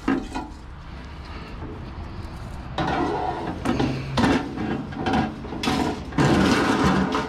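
Clattering, knocking and scraping of junked items being handled and shifted, quiet at first, then a run of irregular bangs and scrapes from about three seconds in, loudest near the end.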